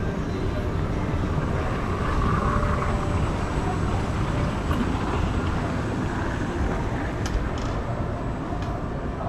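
Steady low rumble and hiss of ambient noise picked up by a walking handheld camera, with a few faint clicks about seven seconds in.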